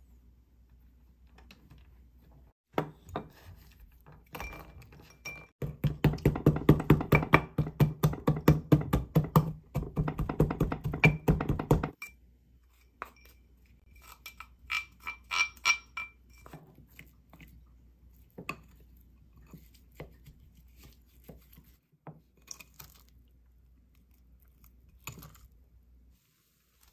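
Mixed nuts crushed with a wooden pestle in a ceramic mortar: a fast run of knocks lasting about six seconds, then a few ringing clinks and light taps as the crushed nuts are tipped out of the mortar into a glass bowl.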